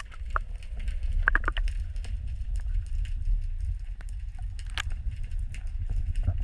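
Sound picked up through an underwater camera's housing: a steady low rumble of water moving past it, with scattered clicks and crackles.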